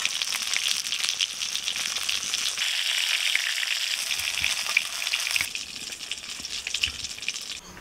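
Bhetki fish steaks sizzling and crackling in hot mustard oil in a kadai. The sizzle drops in level about five and a half seconds in and falls away further near the end.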